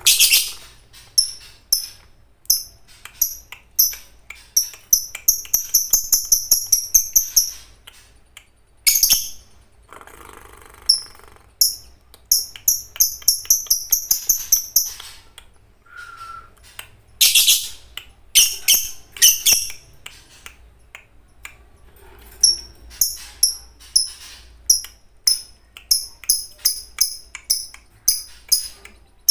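Lovebird singing in the long chattering 'ngekek' style: runs of rapid, shrill, high-pitched chirps, several a second, broken by short pauses.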